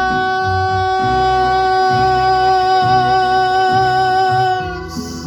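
Song ending: a singer holds one long final note with a slight vibrato over guitar and bass accompaniment, the note stopping shortly before the end.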